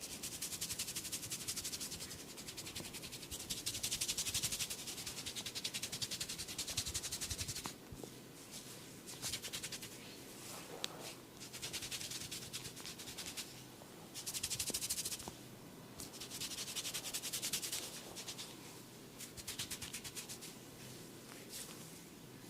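Head massage: fast rubbing and scratching on hair and scalp, a dry rustling scrape that comes in spells of one to three seconds with short pauses between.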